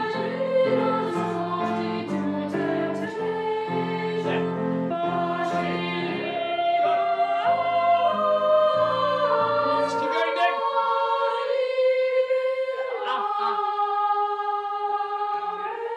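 A choir of boy trebles singing with piano accompaniment. The piano plays repeated chords under the voices for about the first ten seconds, then drops out while the boys hold long high notes on their own.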